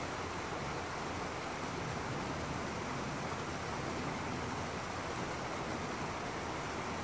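Small woodland stream running over a rocky cascade: a steady, even rush of water.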